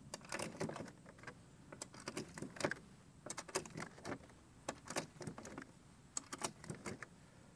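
9mm cartridges being loaded one by one into a Glock 26 pistol magazine: a run of sharp, irregular metallic clicks and clinks as each round is taken from a plastic ammo tray and pressed down past the magazine lips.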